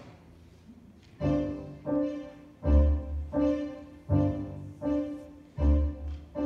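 Stage-musical underscore: the band strikes a repeated chord about every 0.7 seconds, with a heavy bass note under every second hit.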